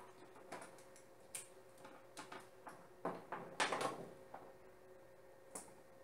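Light clicks, taps and knocks of cable connectors and plastic parts being handled and plugged together on a table, as a network-cable video transceiver is fitted to BNC leads, with a denser run of rattling knocks about three to four seconds in. A faint steady hum lies underneath.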